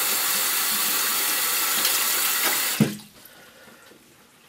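Running water, a loud steady hiss that is shut off about three seconds in with a single clunk, leaving quiet room tone.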